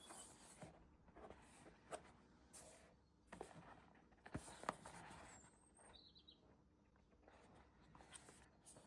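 Faint rustling and crinkling of blind-box packaging being handled and opened, with scattered light clicks and taps.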